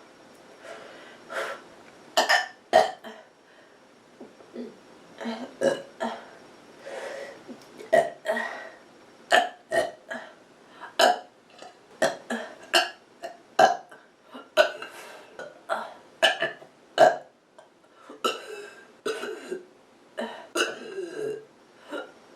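A person burping over and over on a full, stuffed stomach: a long run of short burps, about one or two a second, some in quick pairs.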